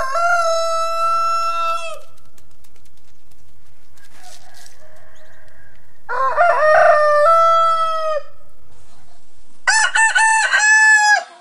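Rooster crowing three times: a long held crow at the start, another about six seconds in, and a choppier, broken-up crow near the end.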